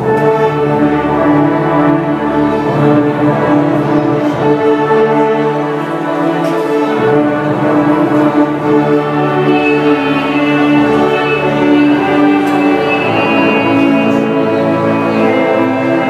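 Church choir singing a hymn in long, held chords.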